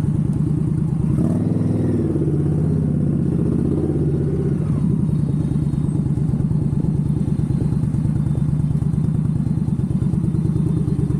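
Motorcycle engine running steadily at low speed, heard from the rider's seat, with a fast even pulse. Its note wavers up and down between about one and four and a half seconds in, then settles.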